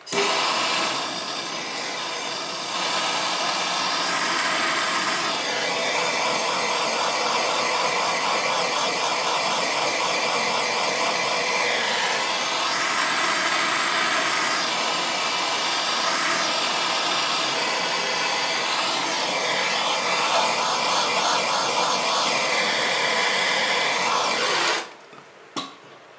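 Hand-held propane torch burning with a steady rushing hiss as its flame is played over a freshly thrown clay bowl to stiffen it; the flame is shut off about a second and a half before the end.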